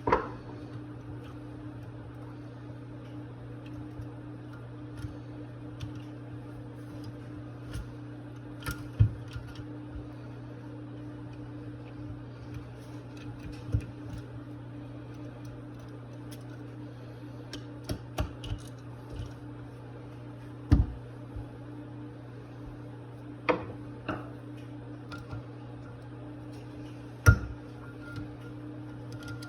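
Small metal carburettor parts and tools clicking and knocking on a bench now and then while a Rochester 2GC two-barrel carburettor is taken apart, over a steady low hum.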